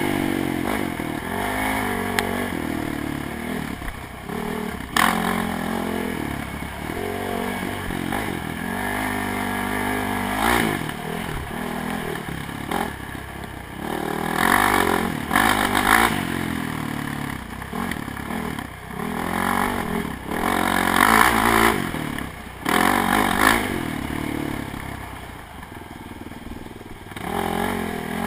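ATV engine revving up and down again and again as it is ridden hard along a bumpy dirt trail, with rattling and scraping from the machine over the rough ground. A sharp knock comes about five seconds in, and another near the three-quarter mark.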